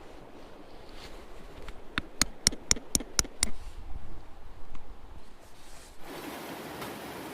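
A quick run of about seven sharp knocks, some four a second, over faint background noise; about six seconds in, a steady rushing noise starts suddenly.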